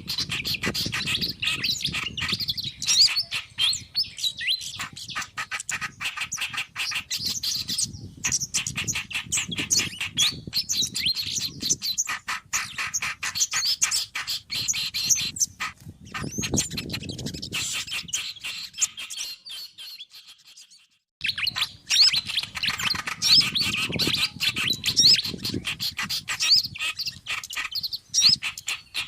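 Bird-lure recording of small songbirds, a mix of reed warbler (kerak basi), fantail (sikatan kipas), sogon and kemade songs: dense, rapid chirping and twittering. It fades out and stops about twenty seconds in, then starts again a second later.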